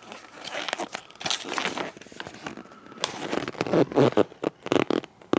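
Plastic blind-bag packaging crinkling and rustling irregularly as it is handled, with scattered small clicks and a sharp click near the end.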